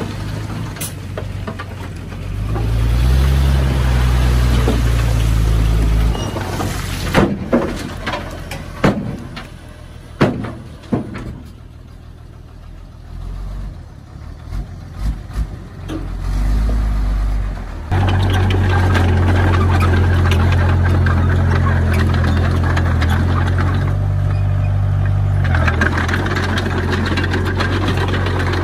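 Heavy diesel engine working: it revs up for a few seconds, then comes a run of sharp knocks and clanks and a quieter stretch. For the last ten seconds the engine runs hard and steady.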